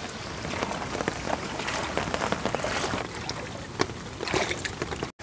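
Monsoon rain falling steadily: an even hiss with many drops ticking irregularly close by.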